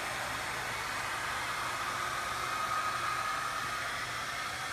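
Remington handheld hair dryer running steadily on medium heat, a constant rush of blown air with a faint steady whine that becomes clearer about halfway through.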